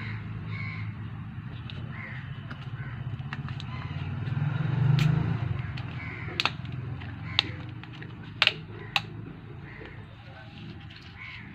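Plastic Kinley water bottle being handled and its screw cap twisted off: several sharp plastic clicks and crackles in the second half, over a steady low hum.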